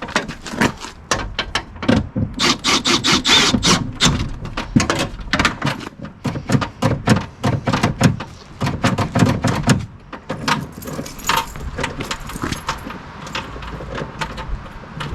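Rapid metallic clicks and rattles of hand tools and latch parts being worked inside a pickup truck's door, busiest over the first ten seconds and sparser after that.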